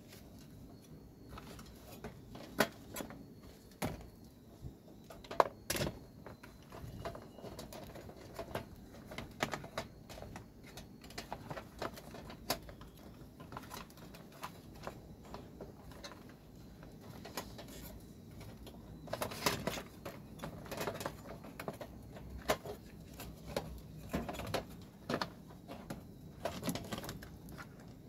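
Irregular clicks, taps and light rattles of plastic parts and wiring as they are handled and pushed into place inside the opened body of a Panasonic IH rice cooker. The sharpest clicks come about five seconds in, with a busier patch of handling a little past the middle.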